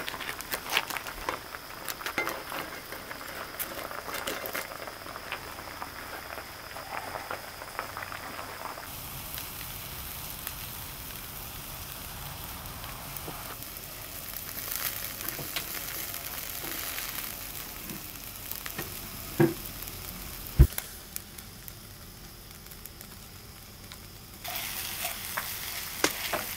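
Food sizzling and spitting in a hot pan, with fine crackling pops throughout. Two sharp knocks come about two-thirds of the way through.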